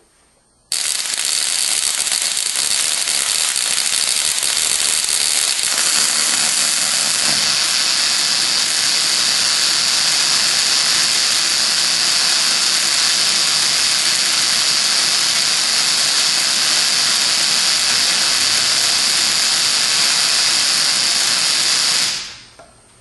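Ruhmkorff induction coil in high-voltage operation, a continuous spark discharging across its brass spark gap as a loud, steady hiss. It switches on abruptly under a second in and dies away quickly about a second before the end.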